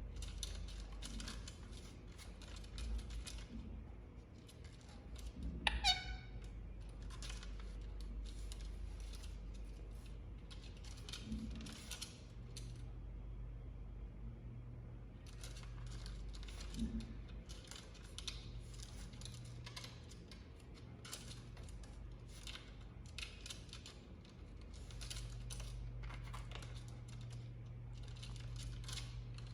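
Indian ringneck parrot making bursts of rapid, soft clicking sounds, with one whistled call that falls steeply in pitch about six seconds in. A steady low hum runs underneath.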